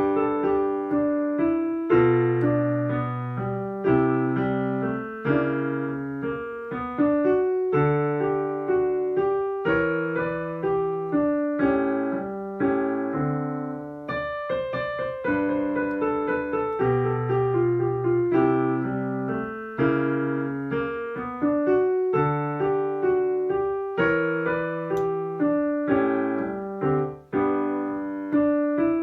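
Solo piano playing a jazz piece, with a low bass line under chords and a melody, each note struck and fading.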